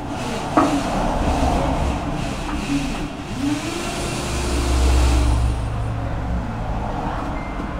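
A motor vehicle's engine rumbling as it passes on the street, swelling to its loudest about four to five seconds in. There is one sharp knock about half a second in.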